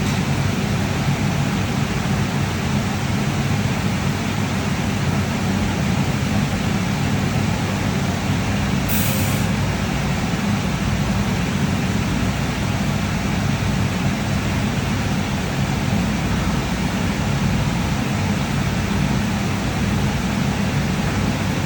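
Steady hum of the AWEA LP-4025Z double-column CNC machining center running under power, heaviest in the low end. A short hiss sounds about nine seconds in.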